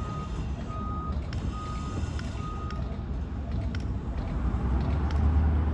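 A vehicle's reversing alarm beeping at one steady pitch, four beeps a little under a second apart, stopping about three seconds in. Under it runs the continuous low rumble of an engine, which grows louder near the end, with a few light knocks.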